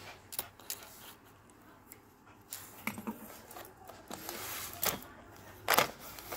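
Scattered light scratches and rustles from a Pomeranian pawing under a washing machine at a packet that has slid beneath it, with a louder rustle near the end.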